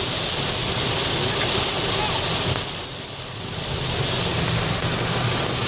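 Heavy rain hitting a moving car, mixed with tyre and road noise, as a loud steady wash; it eases briefly about three seconds in.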